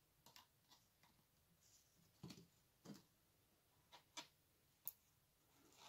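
Near silence with a handful of faint, irregular ticks and taps.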